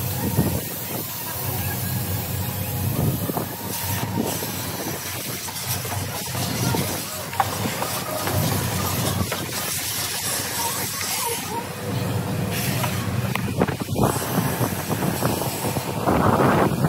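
Steady rushing hiss of car-wash machinery running, with a few faint knocks and a louder surge of hiss near the end.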